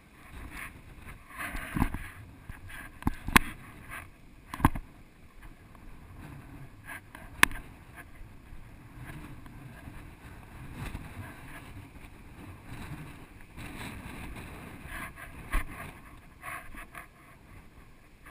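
Rustling and scuffing of a hiker's clothing and gear close to the microphone as he climbs through sand and brush, broken by several sharp clicks and knocks, the loudest about three and seven seconds in.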